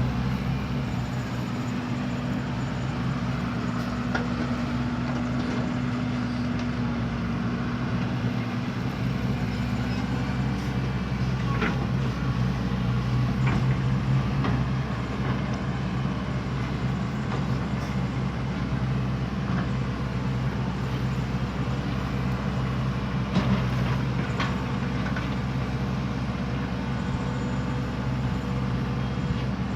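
Heavy diesel earthmoving machinery running steadily at a constant engine speed, with a few sharp knocks of metal or material striking, about a third of the way in and again about three-quarters through.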